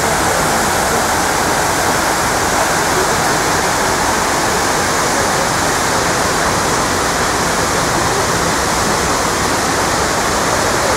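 Steady rush of falling water from the 9/11 Memorial's pool waterfalls, a constant loud hiss.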